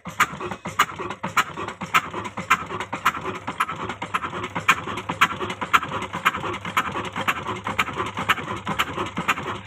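22 hp Ruston Hornsby horizontal single-cylinder diesel engine running slowly and steadily, its exhaust beating in an even rhythm of about two sharp beats a second with lighter valve clatter in between.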